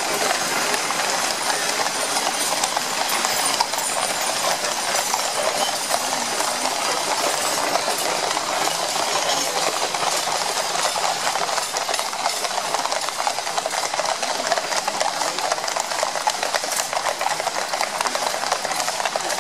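Shod hooves of a column of many horses clip-clopping on a paved road at a walk, a dense, unbroken clatter of overlapping hoofbeats.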